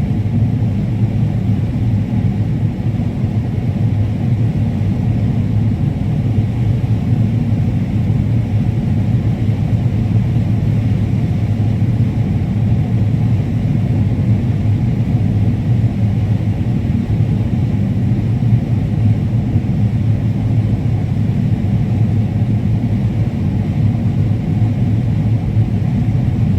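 Combine harvester running steadily while cutting corn: a constant low drone of engine and threshing machinery with no change in pitch.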